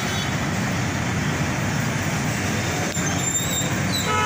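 Steady noise of heavy, slow street traffic: the engines of jeepneys, cars and motorcycles idling and creeping in a jam. A few brief high-pitched tones come through about three and four seconds in.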